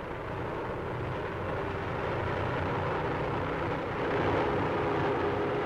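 Steady drone of an airship's engines over the hiss of an old film soundtrack, slowly growing louder.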